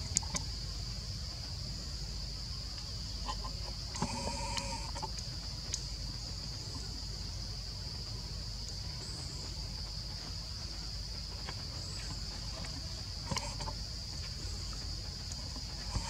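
Steady high-pitched insect buzz, with a few short animal calls about four seconds in and again near the end.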